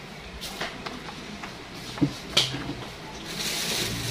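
Hands squeezing wet grated coconut in a bucket to press out coconut milk: a few short wet clicks and drips, then a longer wet squelching hiss near the end.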